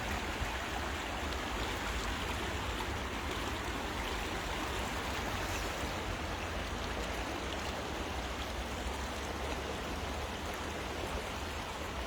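Fast-flowing river rushing steadily, with rain falling on the water.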